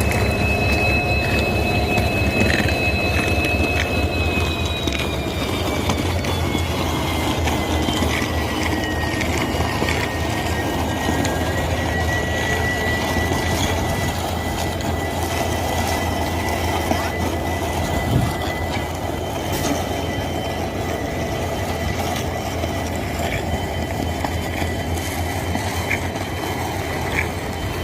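WDP4D diesel locomotive's EMD two-stroke V16 engine running with a steady low rumble and a high-pitched hum. The whine slides down in pitch a few seconds in, then holds steady.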